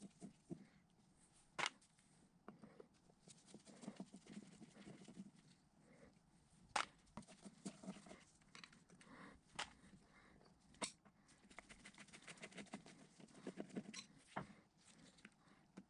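Faint handling sounds of cleaning out an electric motor's end bell: a tool scraping and tapping inside the metal housing and gloved fingers rubbing and wiping. A few sharp clicks stand out.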